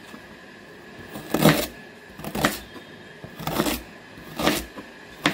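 Kitchen knife chopping peeled ginger on a plastic cutting board: sharp chops about one a second.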